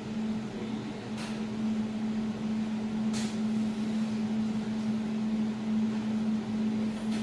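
Desktop jewelry laser welding machine running with a steady hum while it gets ready after the laser is activated, with two faint sharp ticks about one and three seconds in.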